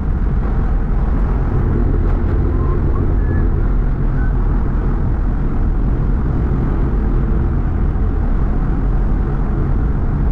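A vehicle driving, a steady low road rumble with no change in pace.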